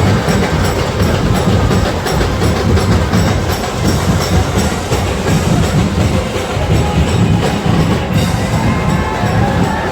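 Loud street-procession drumming: heavy deep drums beating continuously, with a steady run of short high metallic ticks over them.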